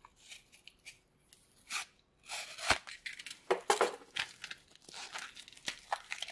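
Micro SD card retail packaging being cut and torn open along its marked line: a run of irregular crackling tears and clicks, sparse at first and denser from about two seconds in.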